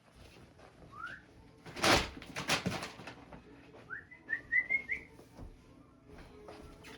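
Short rising whistled chirps calling a puppy: one about a second in, then a quick run of five near the middle. A loud clatter and a few knocks come just before the run.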